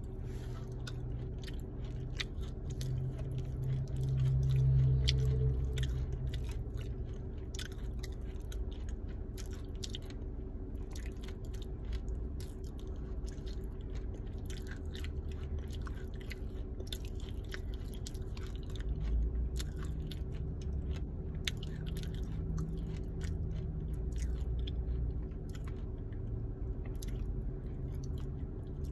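Dry edible clay (a smoked 'Mandingo' clay ball) being chewed close to the microphone: dense, irregular crunching and crackling with heavier bites now and then, over a faint steady hum.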